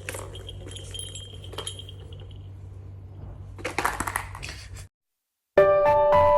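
A small bell ringing with light metallic clinks over a steady low hum, then a brief rustle. After a moment of silence, piano background music starts about five and a half seconds in.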